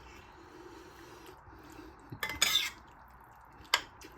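Cutlery clinking and scraping against a dish while eating: a short run of clinks about two seconds in and a single clink near the end.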